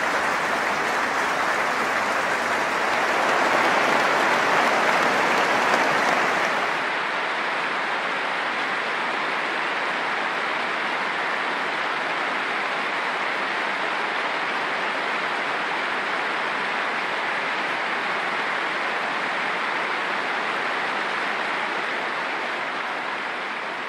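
Large football stadium crowd applauding steadily, a sustained minute's applause. A little louder in the first seven seconds, then slightly duller and steadier after a cut to another ground.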